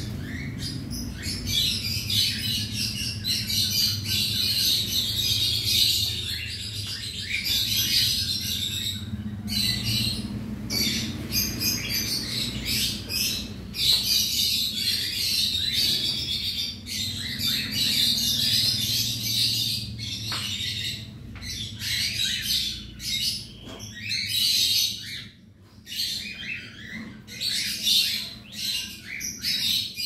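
A colony of cockatiels chattering, with many overlapping chirps and squawks, over a steady low hum.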